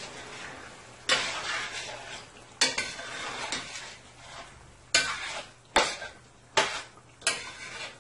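A spoon stirring chicken pieces and split peas in a large stainless steel stockpot. There are six scraping strokes, coming quicker in the second half.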